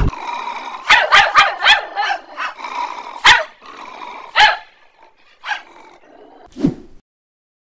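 Puppy barking in short, high yaps: a quick run of five or so in the first two seconds, then single barks spaced out over the next few seconds.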